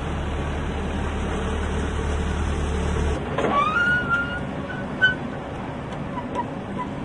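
A truck engine runs with a steady low hum, then cuts off abruptly about three seconds in. A high squeak follows, rising and then holding for about a second, and then a single sharp click.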